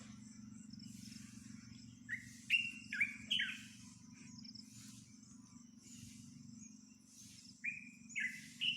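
Birds calling in short, sharp chirps: a run of four about two seconds in and another few near the end, over a low steady hum.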